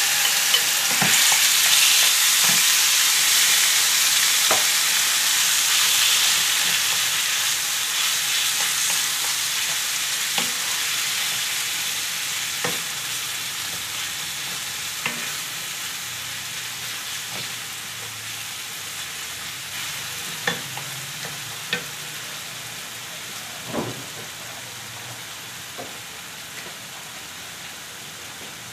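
Yogurt-marinated chicken pieces sizzling in oil in a nonstick frying pan while a wooden spatula stirs them, with scattered light knocks of the spatula against the pan. The sizzle is loudest at first and grows steadily quieter.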